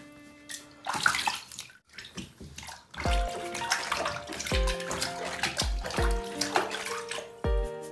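Water splashing and sloshing in a small plastic tub as hands scrub a wet Pomeranian, over background music whose low beat comes in about three seconds in.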